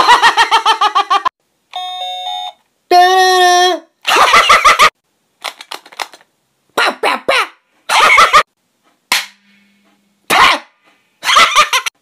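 A rapid series of short sounds: household objects alternating with a man's voice mimicking them. It opens with a loud run of pulsing vocal sounds and includes a brief run of electronic beeps.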